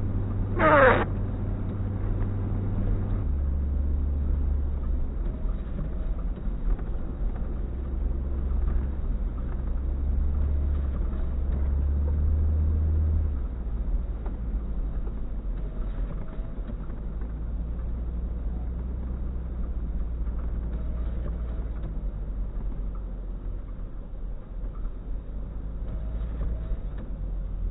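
Low, steady vehicle engine rumble that drops in pitch about three seconds in and again about thirteen seconds in, with one quick falling squeal just under a second in.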